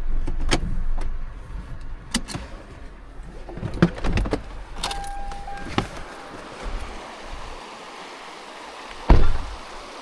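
Car moving slowly over rough ground, heard from inside: a low rumble that fades after about a second, with scattered knocks and rattles. A short electronic beep comes about five seconds in, and a loud single thump comes near the end.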